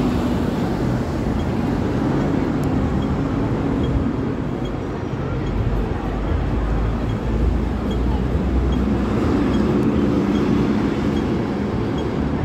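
Steady city street traffic noise from passing vehicles, with a heavier low rumble about halfway through. Under it, a pedestrian crossing signal ticks faintly and high, about twice a second.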